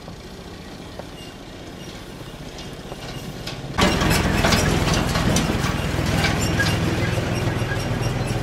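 A motor vehicle's engine running close by, with rapid rattling clicks over it, coming in suddenly about four seconds in; before that only a low hum.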